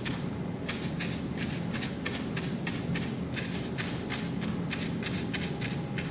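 A small paintbrush dabbing and scrubbing black paint onto a painted pumpkin cutout: quick, short scratchy strokes, several a second, starting shortly after a brief pause.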